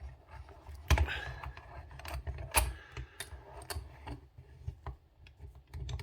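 Handling noise from setting a padlock in a vise: an irregular series of sharp metal clicks and knocks, with two louder knocks about one second and two and a half seconds in.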